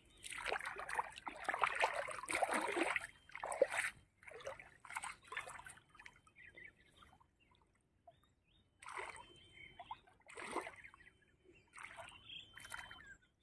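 Shallow pond water splashing and sloshing as a cast net is dragged and shaken through it and people wade and reach into it. It comes in irregular bursts, busiest in the first few seconds, with a lull past the middle before the splashing picks up again.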